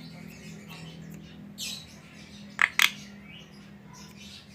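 Javan myna calling: scattered short chirps, then two loud, harsh squawks in quick succession a little past halfway, over a low steady hum.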